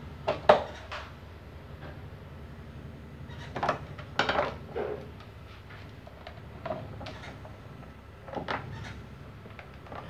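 Clacks and knocks of fan parts being handled on a workbench: the electric fan motor and the plastic fan body bumping against each other and the bench. The knocks come in scattered groups, the sharpest about half a second in, a cluster around four seconds, and a few more near seven and eight and a half seconds.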